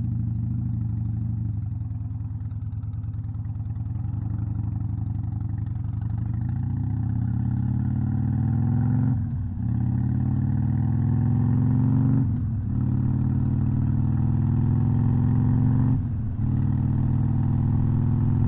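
Harley-Davidson Iron 1200's air-cooled V-twin engine accelerating through the gears. Its pitch climbs steadily, with a brief drop at each of three upshifts, about nine, twelve and a half, and sixteen seconds in.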